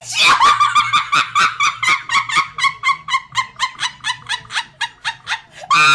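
A girl laughing hysterically in rapid, high-pitched squealing pulses, about four or five a second, easing off slightly before a loud shriek of laughter near the end.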